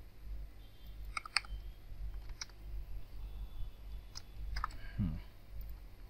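A handful of separate computer mouse clicks, spaced irregularly, over a steady low hum.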